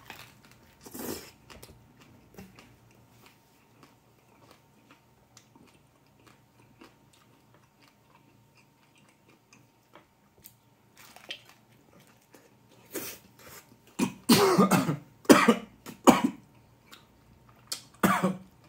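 Close-up eating of a soft tortilla fajita: a bite about a second in, then chewing with faint wet mouth clicks. In the second half come several loud coughs in quick succession, with one more near the end.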